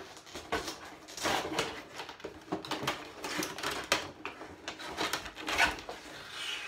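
Irregular rustling, scraping and clicking of cardboard and plastic packaging as a toy drone and its parts are handled and worked out of the box.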